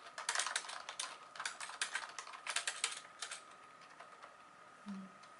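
Fast typing on a Kakao Friends Bluetooth keyboard with round, slightly soft keys: a quick patter of key clicks that stops a little past three seconds in, with only a few stray taps after.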